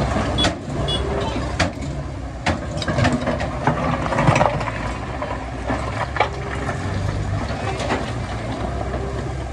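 Heavy machinery's diesel engine running steadily, with scattered sharp metallic clanks and knocks.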